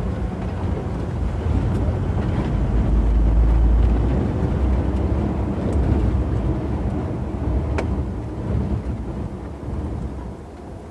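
Outdoor location sound: an uneven low rumble that swells a few seconds in and then fades toward the end.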